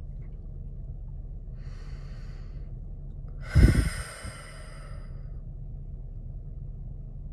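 A woman breathes in softly, then breathes out more loudly about three and a half seconds in, the breath striking the microphone. A steady low hum runs underneath.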